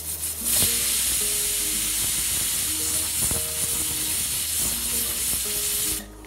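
Pressure cooker whistling: steam blasts out under the weight valve in one long, loud hiss that starts about half a second in and stops abruptly near the end. This is the single whistle that tells the rice inside is cooked and the heat can be turned off.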